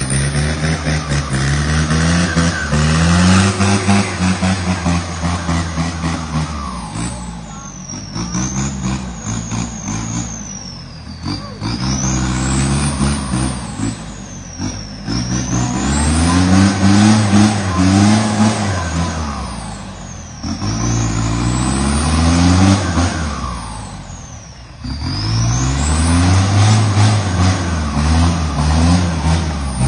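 Radio-controlled construction truck's engine sound, revving up and falling back again and again, with a high whine that rises and falls alongside it.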